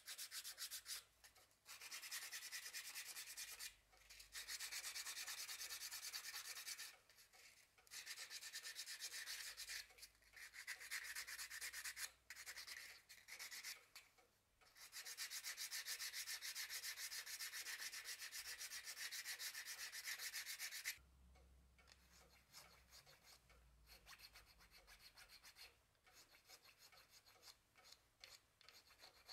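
Sandpaper rolled into a tube, rubbed by hand over a carved Manchurian walnut figurine in fast, short strokes. The rubbing comes in several runs with brief pauses. About two-thirds of the way through it stops, leaving only faint, scattered scratches and ticks.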